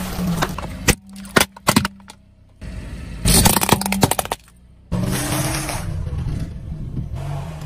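A car tyre crushing things in a run of quick cuts: the crunch and crackle of dry instant noodle packets breaking under the wheel, several sharp cracks, and a loud burst of crunching about three seconds in. From about five seconds the car's engine runs low as the tyre rolls onto popcorn.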